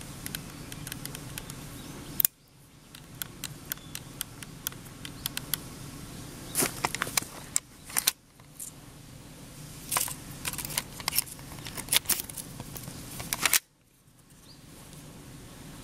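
S&T M203-type gas airsoft grenade launcher firing a shell with one sharp pop about two seconds in. Many scattered light clicks and ticks follow.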